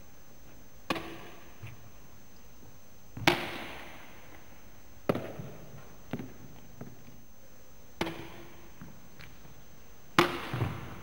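Badminton racket striking the shuttlecock in backhand net kills: sharp cracks about every one to two seconds, each echoing in the hall, the loudest about three seconds in and near the end.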